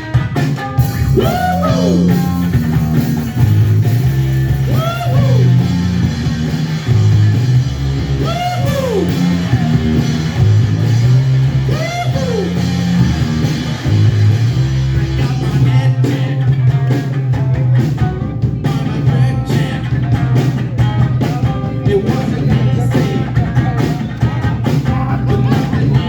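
Live rock band playing: an electric guitar, a Gibson Les Paul Standard, over bass and drum kit. In the first half the guitar repeats a bent note that rises and falls about every three and a half seconds; after about the middle the playing gets denser.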